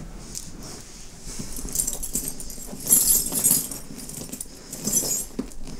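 Hands rummaging through a bag, its contents rustling with metal bits jangling and clinking, loudest about three seconds in.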